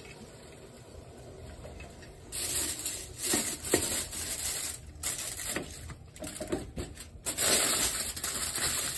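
Aluminium foil crinkling and crackling in irregular bursts, starting about two seconds in, as it is pressed and crimped around the rim of a pot under a glass lid to seal the rice for dum steaming.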